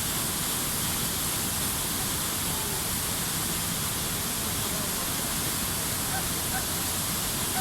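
Water released through a dam's emergency flood spillway gates during an inspection release, pouring down the spillway in a steady, unbroken rush.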